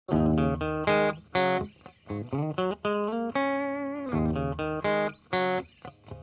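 Instrumental background music begins abruptly out of silence: a melody of separate plucked notes.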